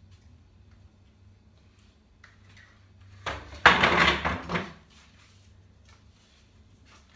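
Wooden bar stool dragged across a tiled floor: one loud scrape lasting about a second and a half in the middle, with faint broom sweeping around it.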